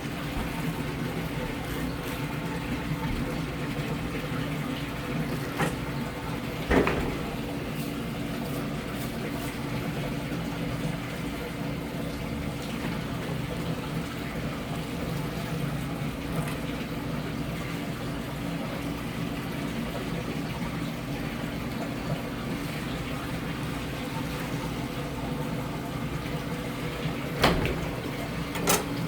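Steady rush of running water over a constant low machine hum, with a couple of sharp knocks, one about a quarter of the way in and one near the end.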